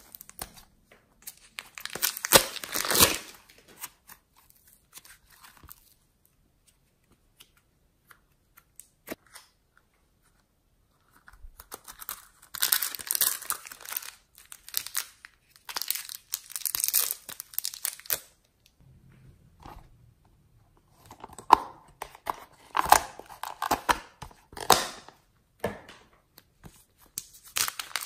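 Thin plastic wrappers and piping bags crinkling and being torn open by hand, in several spells of crackling with quiet gaps between.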